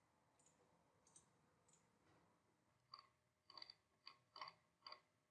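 Faint clicks from a computer mouse: a few light ticks early, then a scattered run of about seven sharp clicks in the second half, some in quick pairs.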